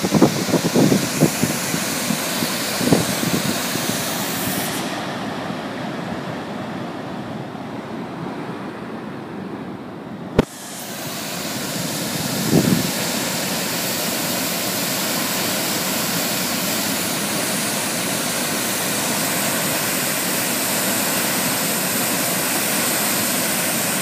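Chitrakoot Falls on the Indravati River, a wide 90-metre waterfall, giving a steady rushing roar. A few gusts of wind buffet the microphone at the start. The sound goes dull for a few seconds in the middle and returns with a sharp click.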